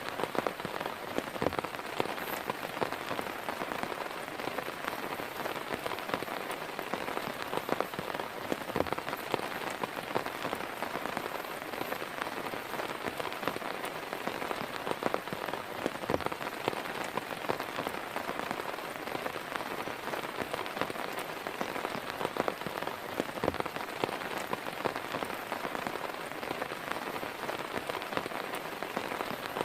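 Heavy rain falling steadily, with many sharp hits of single drops striking a nearby surface.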